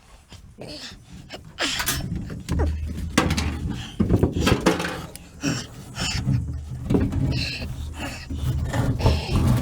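Irregular knocks, clunks and rustling as parts are handled and worked loose on the old Bronco's body, with a low rumble joining in about two and a half seconds in.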